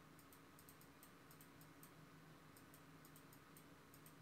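Near silence with faint, irregular computer mouse clicks, several a second, over a faint low hum.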